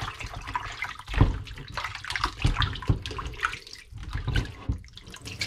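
Water splashing and sloshing in a kitchen sink as raw chicken pieces are washed by hand in a basin, with uneven splashes and knocks.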